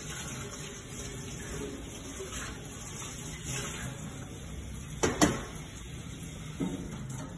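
Kitchen tap running into a steel sink while stainless steel bowls are washed. About five seconds in, a bowl gives two sharp metal clanks, followed by a smaller knock.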